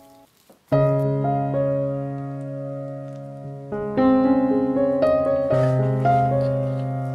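Background piano music: a soft held chord ends, and after a short pause a new piano piece starts with a loud chord under a second in, followed by further sustained chords.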